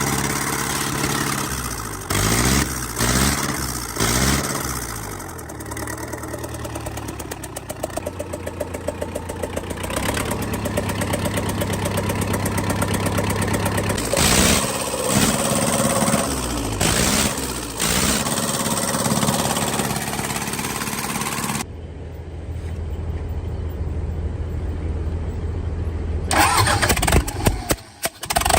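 Freshly restored engine being started and run, mostly idling steadily with short rises in speed. Its sound changes abruptly a few times.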